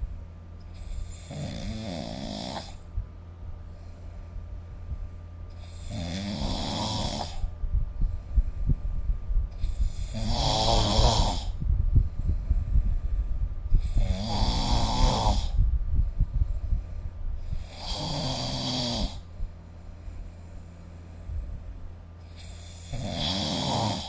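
A person snoring: six snores about four seconds apart, each a second or two long, a pitched snore with a breathy hiss on top. Recorded through a phone's microphone.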